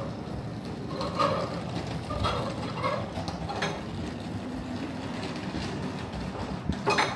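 Outdoor street ambience: a steady low rumble, faint distant voices coming and going, and a few sharp clicks, one near the end.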